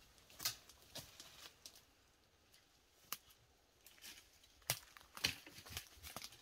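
Horses on dry, drought-parched pasture: faint, scattered crackles and snaps at irregular intervals, the loudest a little past the middle.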